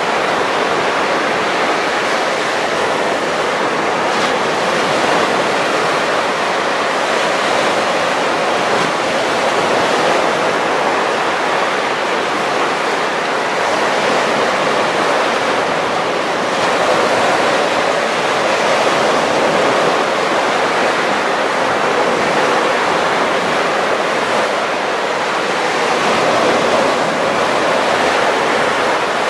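Baltic Sea surf: small waves breaking and washing up a sandy beach in a steady rush, swelling slightly a couple of times.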